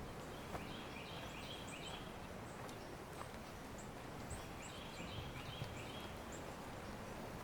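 Songbirds singing in woodland: two phrases of quick repeated notes, the first about a second in and the second about halfway through, with scattered short high chirps and a few faint clicks over a steady background hiss.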